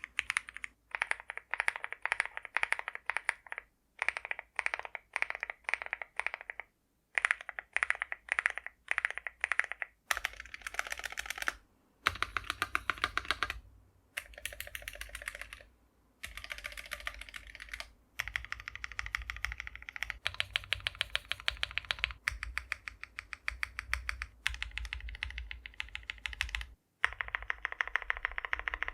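Typing on an Akko Mod006 75% keyboard with lubed Akko CS Crystal Silver linear switches and PBT cherry-profile keycaps: fast keystrokes in runs of a few seconds, with short pauses between them. From about ten seconds in, the keystrokes have a deeper note.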